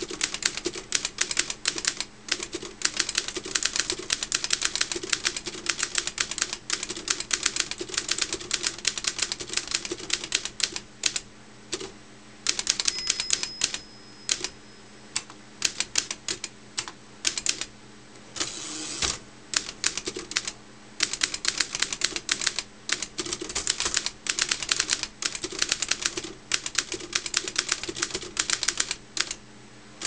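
Underwood long-bed manual typewriter being typed on rapidly: a dense run of keystroke clacks, freshly cleaned and oiled and working smoothly. There are a few short pauses and a longer sliding rattle about two-thirds of the way through.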